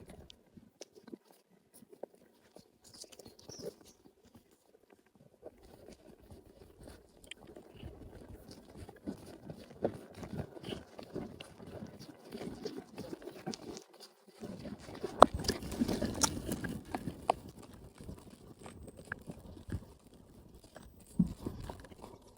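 Pony chewing and crunching, with irregular clicks and rustling that grow louder about two-thirds of the way through.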